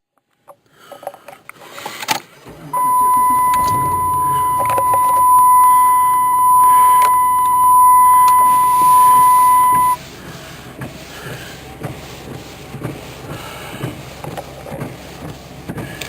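A vehicle's dashboard warning buzzer sounds one steady high tone for about seven seconds and then cuts off suddenly, over a low engine idle. A few knocks and clicks come just before it.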